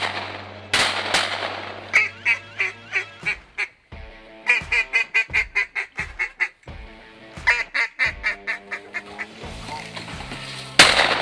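Shotgun shots, two in the first second and one near the end, the shot near the end the loudest, with three fast runs of mallard quacks between them, each run about eight to ten quacks.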